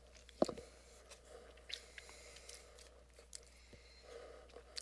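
A sharp knock about half a second in, then a few faint clicks, over a faint steady hum.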